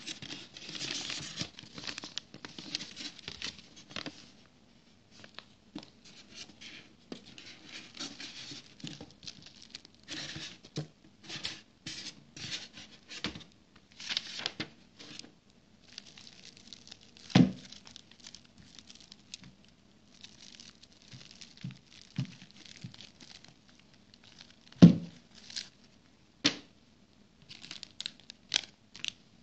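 Clear plastic wrapping crinkling and rustling in irregular bursts as it is handled and pulled off, with a few sharp knocks, the loudest about halfway through and another near the end.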